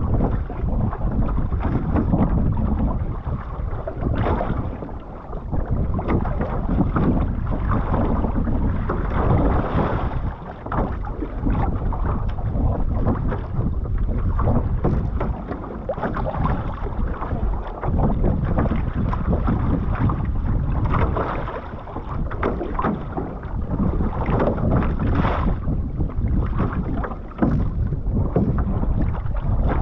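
Water rushing and splashing along the hull of a one-person outrigger canoe as it is paddled at sea, with steady wind noise on the microphone.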